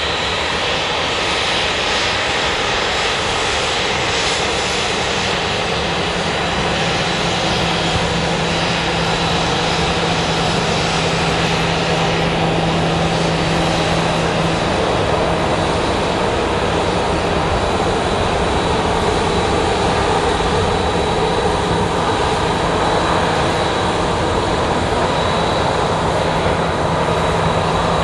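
Boeing 737-800's CFM56-7B turbofan engines running at high power as the airliner rolls along the runway for takeoff. The jet noise is loud and steady, with a low hum under it, and grows a little louder toward the end.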